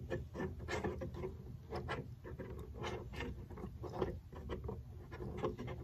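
A nylon barbed elbow fitting being threaded by hand into a drilled hole in a clear plastic container: a run of irregular small plastic clicks and scrapes as it turns.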